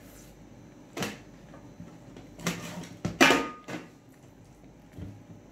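Kitchen handling noises: a single knock about a second in, then a clattering run of knocks and scrapes, the loudest just after three seconds with a brief ring, as of pots, lids or dishes being handled.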